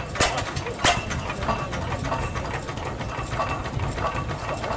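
Vintage stationary gas engine with heavy twin flywheels, belted to a small threshing machine, running with a steady low rumble and sharp firing bangs. Two loud bangs come in the first second, then the beats become fainter and closer together.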